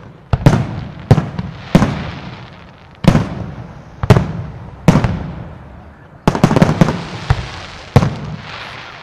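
Aerial firework shells bursting overhead: a string of sharp booms, each trailing off in a rolling echo, with a quick cluster of several bangs a little past the middle.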